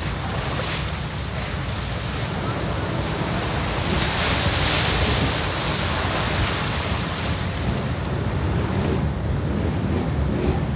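A vehicle ploughing through a deep mud puddle, heard from inside the cab: a steady rush of splashing water over the engine running underneath. The splashing is loudest about four to five seconds in and eases off as the vehicle comes out onto the mud track.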